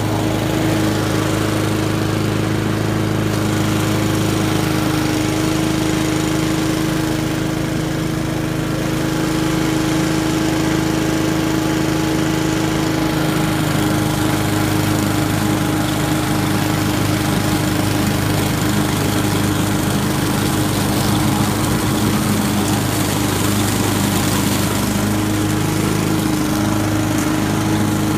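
Honda walk-behind lawn mower's single-cylinder engine running at a steady speed while it is pushed across a lawn, cutting grass and fallen leaves.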